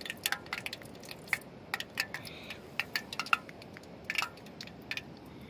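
Cooking utensils and dishes being handled, giving scattered light clinks and clicks.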